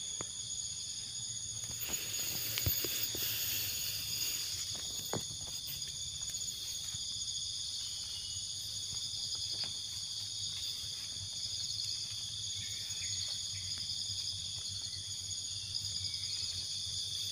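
A steady chorus of insects chirring at several high pitches, with a fine pulsing texture. Scattered light crunches of footsteps on dry leaves and soil sound beneath it.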